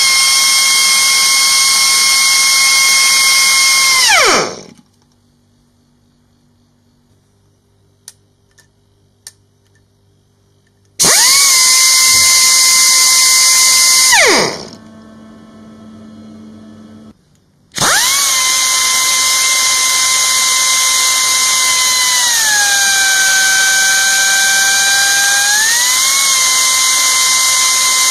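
Nitto Kohki MYTON MYG-40 pneumatic angle grinder running unloaded three times. Each time the air motor whines quickly up to a high steady pitch with a loud rush of exhaust air, then winds down when the switch is released. In the third, longest run the pitch drops for a few seconds and then rises again as the speed adjustment valve is turned.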